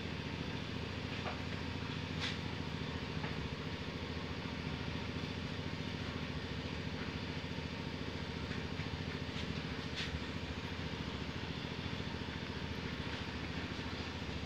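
An engine running steadily at an even speed, with a few faint clicks about two seconds in and again about ten seconds in.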